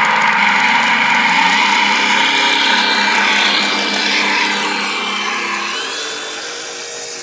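The simulated piston-engine sound from the onboard sound system of an FMS 1400mm P-40B electric RC model plane, running steadily with its electric motor and propeller. It fades as the model taxis away, with a brief rising whine about six seconds in.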